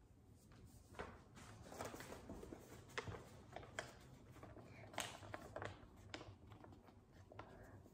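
Faint rustling and crinkling of a paper card as it is unfolded and handled, with a few sharp paper crackles.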